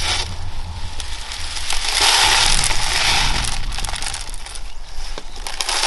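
Gritty bonsai soil crunching and pouring as a barberry's root ball is worked loose from a plastic mesh pot and the grains fall into a plastic tray. It is loudest about two seconds in.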